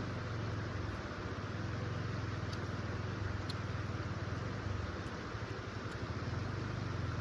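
Steady rushing noise with a fluttering low rumble and no distinct tones, with a few faint ticks high above it.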